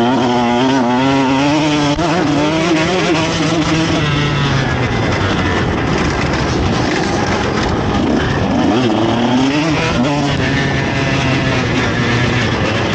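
KTM SX150 two-stroke motocross engine at race pace, heard from on the bike, its pitch rising and falling quickly with each throttle change. For a few seconds in the middle the engine note is buried under a rough rushing noise, then it revs up again.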